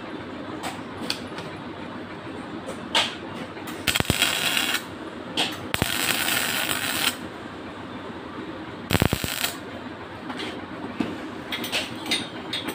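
Electric arc welding tacking stainless steel pipe, heard as three short hissing, crackling bursts around the middle, the longest lasting about a second. In between come light metallic clicks and taps as the steel parts are handled, over a steady background hum.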